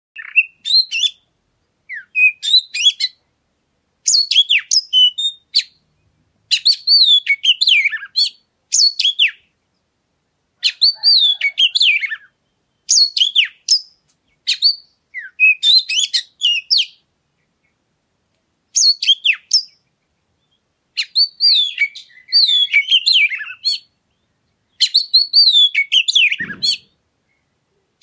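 Oriental magpie-robin (kacer) singing: short phrases of high, quickly gliding whistles and chirps, each one to two seconds long, repeated with brief silent gaps between them.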